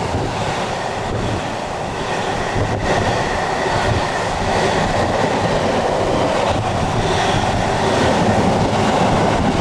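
A train running past on the main line: a steady rumble of wheels on rail with a few faint clicks, growing slightly louder toward the end.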